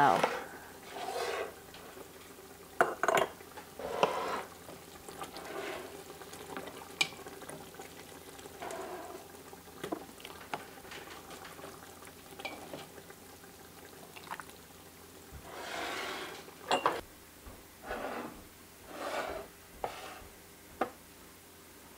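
A metal utensil scraping a pot and clinking against glass canning jars while thick balsamic onion jam is spooned into half-pint jars, in short scattered scrapes with a few brief ringing clinks.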